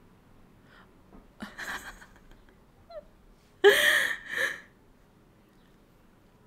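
A woman's short breathy laugh in two quick bursts about halfway through, after a softer breathy gasp about a second and a half in.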